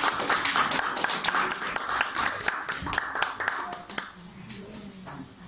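A small audience clapping: many quick overlapping hand claps that thin out and stop about four seconds in, leaving faint voices.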